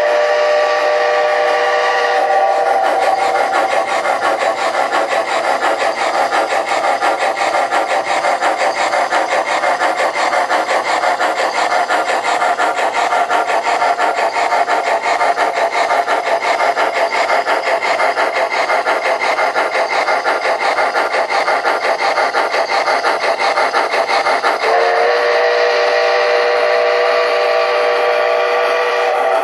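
MTH Premier O-gauge Climax geared steam locomotive's sound system playing a fast, even steam chuff as the model runs. A chime steam whistle of several tones blows at the start, cuts off about two seconds in, and blows again near the end.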